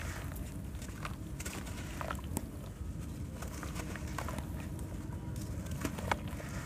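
Wet sand-cement lumps crumbled by hand into a tub of charcoal water: gritty crumbling with sand and small pieces pattering and splashing into the water, and scattered small crackles, a couple of them sharper.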